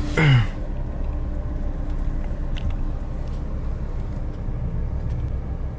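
Car running with a steady low rumble, heard from inside the vehicle. A brief falling vocal sound at the very start.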